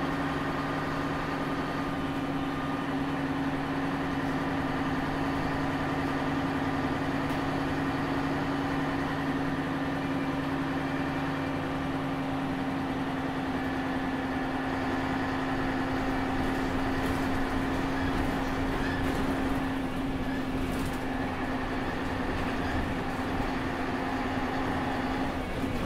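Ikarus 280 articulated bus's diesel engine idling with a steady, even drone. Near the end the pitch shifts slightly.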